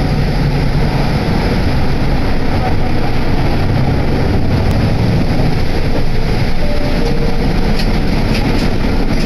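Yutorito Line guideway bus under way, heard from inside the cabin: steady, loud engine and road rumble.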